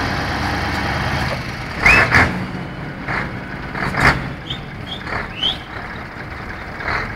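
Scania truck's diesel engine running as it hauls its semi-trailer over grass. Several short, sharp, loud sounds cut in from about two seconds in, and brief high chirps come near the middle.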